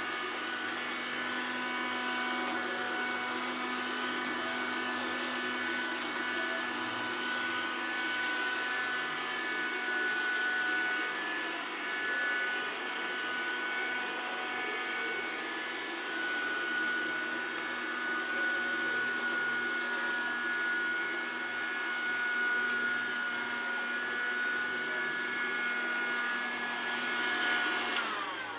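Pifco robotic vacuum cleaner running, a steady motor and fan whine with a hiss of suction. A click near the end, then the sound cuts off.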